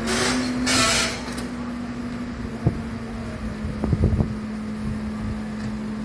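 Hidromek 140 tracked excavator's diesel engine running with a steady hum. A hissing rush fills the first second, then come a sharp knock and a cluster of clanks about four seconds in as the bucket scoops up broken paving stones.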